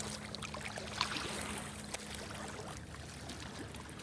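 Water lapping and trickling at the shore, with small splashy ticks over a steady low hum.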